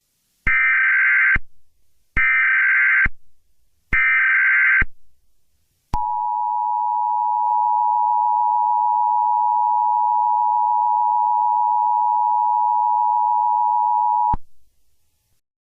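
Emergency Alert System tones: three short bursts of SAME digital header data, about a second each, then the two-tone attention signal held steady for about eight seconds before it cuts off suddenly. Together they mark the start of a broadcast emergency alert.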